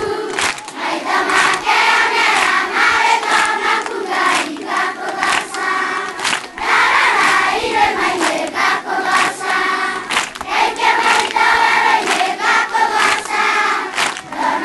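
A group of children singing together in chorus, with hand clapping.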